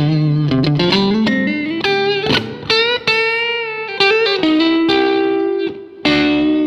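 Electric guitar (a Fender Stratocaster) played through a 1959 Fender 5F6-A Bassman tweed tube amp with a TC Electronic Cinders overdrive pedal on for light crunch. Several chords and notes are struck, each left to ring out.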